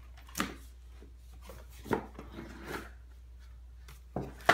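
A cardboard shoe box being handled and opened: a few short knocks and scrapes of the box and lid, the sharpest near the end.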